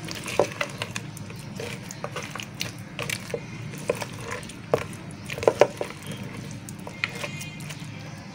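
Silicone spatula stirring a thick mix of cream, chopped pineapple, biscuit pieces and nuts in a bowl, with irregular clicks and knocks as the spatula strikes the bowl and the chunks. The knocks are sharpest a little past halfway.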